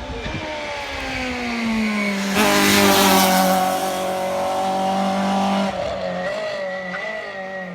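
Competition car on a hillclimb run, its engine held at high revs. The pitch eases down slightly and then holds steady, with a loud rush of noise about two and a half seconds in as the car is at its closest.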